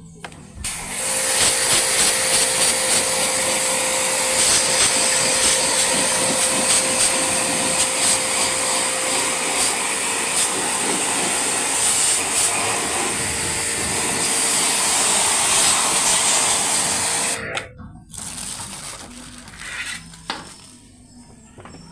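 Pressure washer running with a steady whine while its jet hisses against the fins of a split-type air conditioner's indoor evaporator coil, washing out the clogged dirt. It cuts off suddenly about three-quarters of the way through, leaving only faint handling noises.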